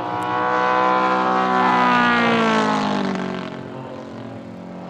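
Gas engine and propeller of a large-scale R/C P-47 Thunderbolt model airplane flying past overhead: the engine note swells, then drops in pitch as the plane passes and fades away.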